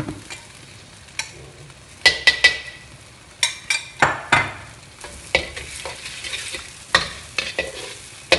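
Metal wok spatula scraping and knocking against a wok while minced garlic fries in oil with a light sizzle. The scrapes come in short clusters, the loudest about two seconds in and again around four seconds.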